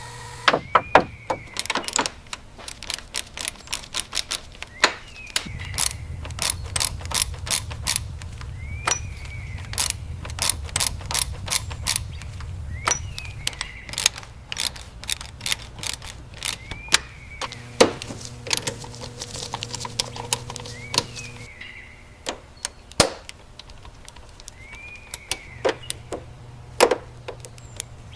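A rapid, uneven run of sharp clicks and taps, like tools at work. A short chirp rises and falls every few seconds, and a low hum comes and goes in the middle.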